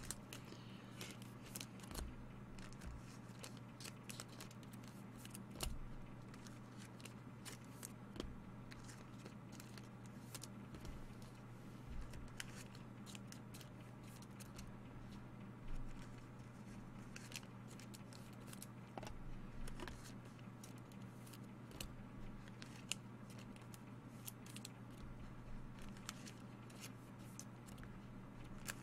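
Steady low hum, with faint scattered clicks and light rustling from small objects being handled.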